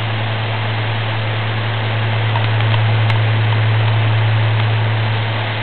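Electric fan running on high: a steady low motor hum under an even rush of air.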